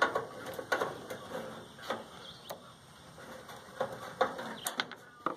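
Irregular clicks and metallic knocks of hand tools and loose parts as an old microwave oven is taken apart, with a few sharper knocks standing out.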